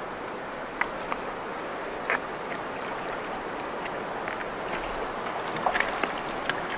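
Steady rush of river water, with a few short, sharp splashes about a second in, at about two seconds and near the end, as a hooked spring Chinook salmon thrashes in the shallows and is grabbed by the tail.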